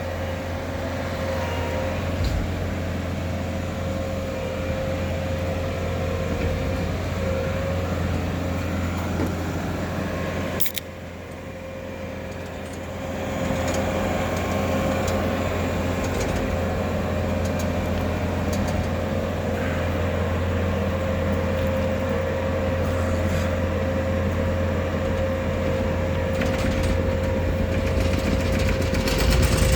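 Bobcat T650 skid steer's diesel engine running steadily under work, a low hum with a steady higher whine on top. About ten seconds in the sound drops off suddenly and builds back up a couple of seconds later.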